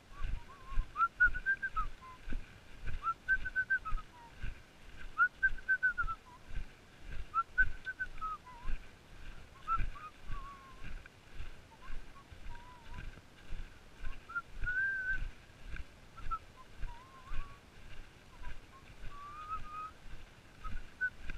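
Walking footsteps with trekking-pole strikes on a grassy track, a dull thump about twice a second. Short whistle-like notes that rise and fall come over them every second or two.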